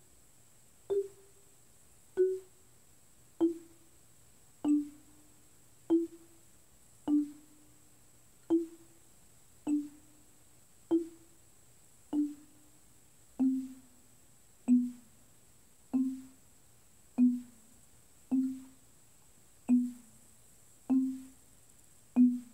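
Marimba played with yarn mallets: single notes struck slowly, about one every second and a quarter, each ringing briefly, stepping gradually lower in pitch as a G major warm-up pattern.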